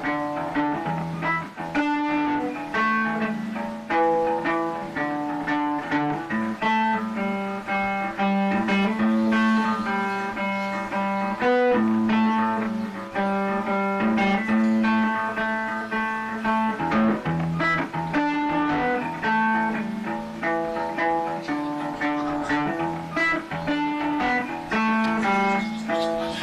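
Background music of plucked strings playing quick runs of notes over a low held bass line.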